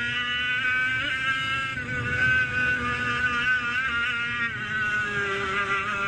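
100cc two-stroke racing kart engine running at high revs with a high, buzzing whine. Its pitch dips briefly and climbs again a few times as the throttle is lifted and reapplied, then drops lower about four and a half seconds in.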